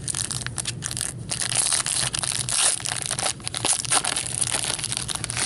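Crinkly wrapper of a hockey trading-card pack being torn open and crumpled, a dense run of crackling.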